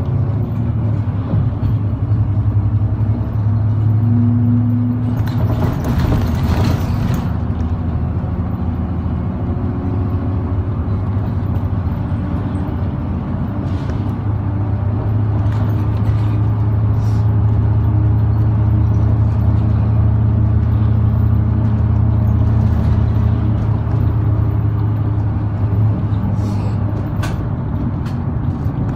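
Interior of a moving route bus: steady low diesel engine drone with road noise. About six seconds in comes a brief rushing noise, heard over the engine.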